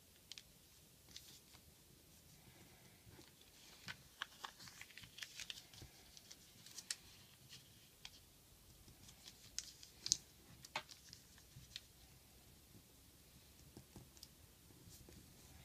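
Origami paper being folded and creased by hand: faint, irregular crinkles and light taps against the tabletop, busiest a few seconds in, with the sharpest click about ten seconds in.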